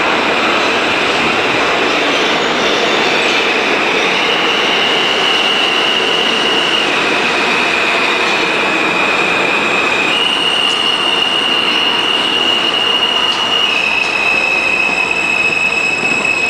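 New York City subway train pulling into a station and slowing along the platform: a steady loud rumble of wheels on rail, with a high squeal that holds one pitch and then jumps to a slightly different one every few seconds.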